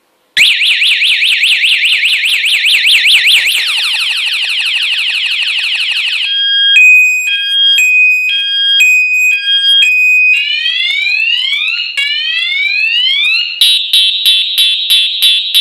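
Bicycle piezo siren cycling through several of its modes, loud and high-pitched. It starts about half a second in with a fast warble, switches to a two-tone hi-lo alternation, then repeated rising whoops, and ends with a rapid pulsing beep. It is really annoying, meant to make pedestrians get out of the way.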